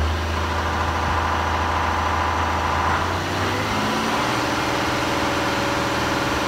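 John Deere tractor's diesel engine running. Its note changes about three seconds in, with a short rise in pitch near four seconds, then holds steady.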